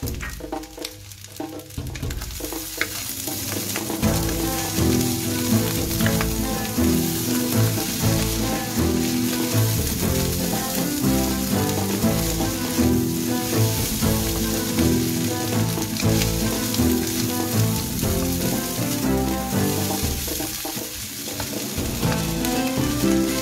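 Fried rice sizzling in a nonstick wok while a wooden spatula stirs and tosses it, scraping against the pan. The frying noise starts up about two seconds in and holds steady after that. Background music plays underneath.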